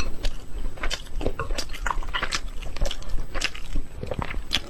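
Close-miked chewing and biting: wet mouth clicks and smacks at an irregular pace, several to the second.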